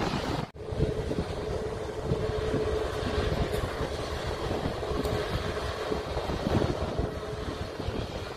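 Jet airliner's engines rumbling as it rolls out along the runway just after landing, heard from a distance with a faint steady whine in the rumble and wind on the microphone. The sound drops out briefly about half a second in.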